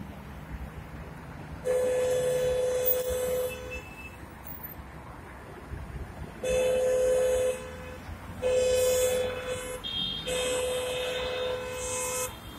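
Car horn honking in four long held blasts, the first and last about two seconds each, the middle two shorter, over the low rumble of slow-moving traffic.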